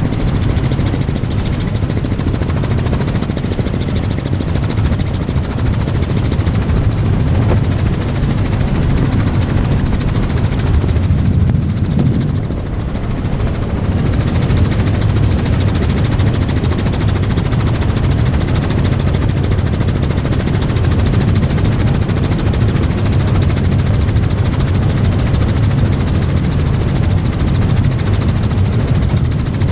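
Tour helicopter in flight: steady rotor and engine noise with a constant high whine, which dips briefly about twelve seconds in.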